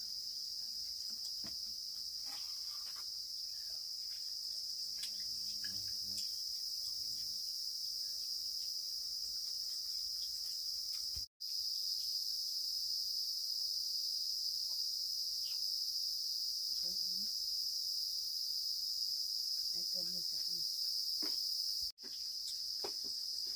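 A steady, high-pitched chorus of insects chirring, with faint voices now and then. The whole sound cuts out for an instant twice.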